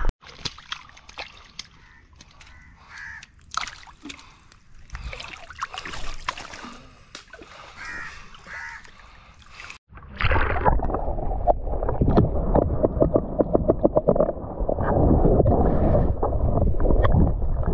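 Crows cawing over light scattered noises, then about ten seconds in a much louder, continuous sloshing and splashing of water close by.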